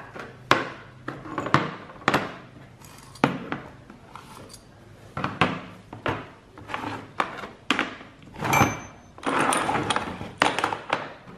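Steel coil springs, bushings and the body of a combine harvester's guide cylinder being handled and set down on a metal tray: a string of irregular metal clinks and knocks. One rings briefly about two-thirds of the way through, followed by a short stretch of rattling and scraping metal.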